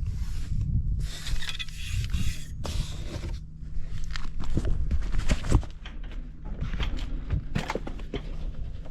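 Honda G Dash scooter's small two-stroke engine running steadily at idle after starting, with no abnormal noise. Scattered clicks and scrapes come over it, with bursts of hiss in the first few seconds.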